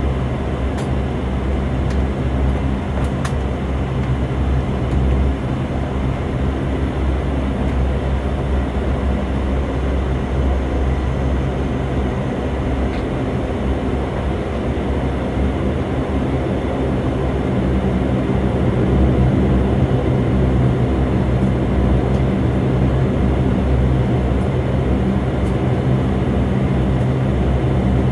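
Cabin sound of a Dash 8 turboprop airliner taxiing on the runway: a steady engine and propeller drone that grows a little louder about two-thirds of the way in.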